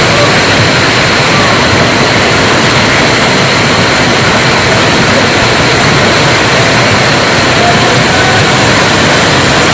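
Steady, loud rush of water from a waterfall and its stream.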